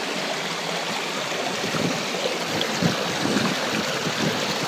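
Shallow stream water rushing steadily over rocks and through a small gold sluice, a continuous splashing rush with a few fuller splashes near the middle.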